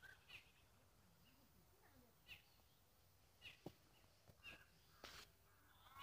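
Near silence with a few faint, short bird calls in the background, about a second apart, and a single faint click a little past halfway.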